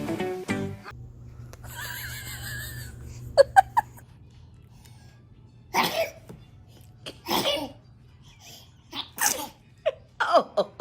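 A baby sneezes twice, about a second and a half apart, and then a run of short bursts of laughter follows. Background music with plucked strings stops just at the start.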